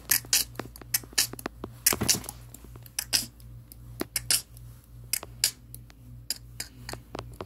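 Scattered sharp clicks and taps at an irregular pace, a few every second, over a low steady hum.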